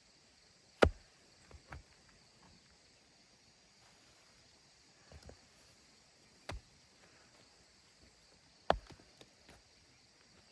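A handful of sharp knocks at irregular intervals, the loudest about a second in and near the end, over a faint steady high-pitched hiss.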